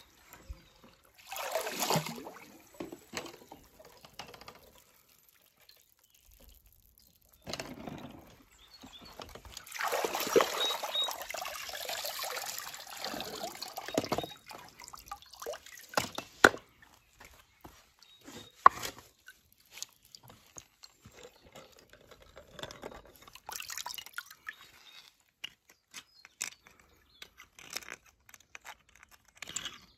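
Water splashing and pouring in irregular bursts, with one longer pour or splash about ten seconds in, and scattered small clicks and knocks.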